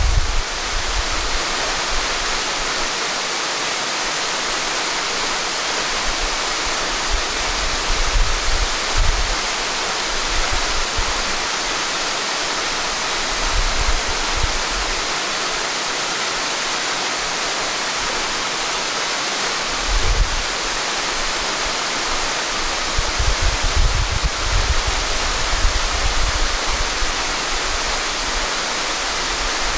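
Waterfall pouring down a rock face into a pool: a steady hiss of falling water. Wind buffets the microphone with low rumbles a few times, most often near the end.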